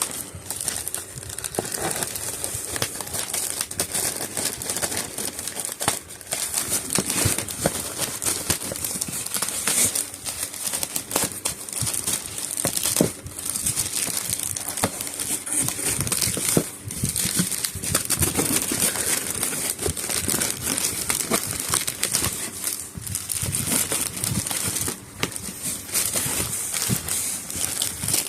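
Packaging being handled during an unboxing: continuous irregular crinkling and crackling of paper or plastic wrapping.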